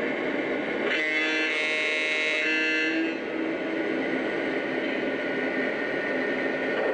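Sound system of a Lionel Legacy Union Pacific F7 model diesel locomotive: the diesel engine sound runs steadily, and the horn sounds for about two seconds starting about a second in.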